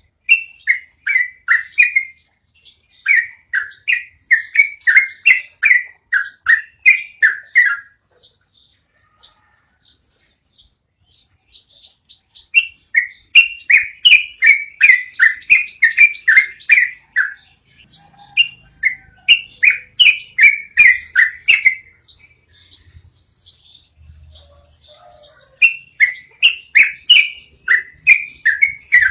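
Yellow-vented bulbul (trucukan) singing its long rolling song: runs of quick, bubbly falling notes, about two or three a second, each run lasting several seconds, with short pauses of softer twittering between runs.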